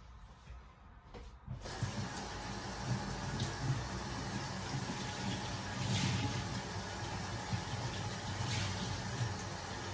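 Kitchen tap turned on about a second and a half in, then water running steadily into the sink.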